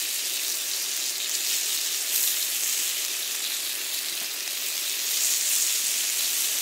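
Pork neck sizzling steadily on a hot grill plate.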